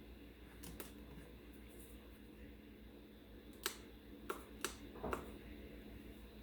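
A few light, sharp clicks and knocks, about five in all and mostly clustered in the second half, over a faint steady hum.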